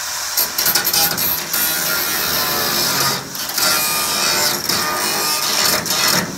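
Background music over a steady high hiss from a lit gas welding torch flame.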